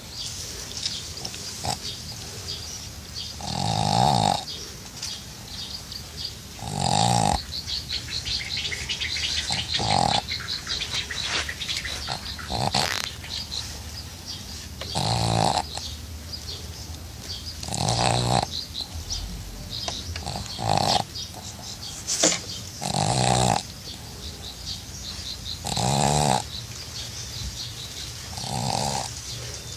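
A sleeping pug snoring, with a loud snore about every three seconds and steady hissy breathing in between.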